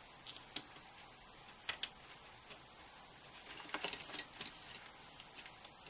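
Small clicks and light scraping as the casing and battery cable of an opened 3rd-generation iPod are handled: a few sharp ticks in the first two seconds, then a longer patch of scratchy fiddling a little after halfway.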